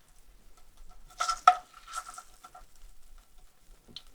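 Kitchen clatter: a metal utensil knocking against a metal pan several times, the loudest knock about a second and a half in, with a faint ringing.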